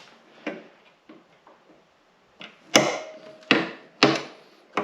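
Hand tools knocking and clanking sharply, about five times with the loudest near three seconds in, while the remains of a pop rivet whose head has been knocked off are worked out of a snowmobile side-panel latch mount.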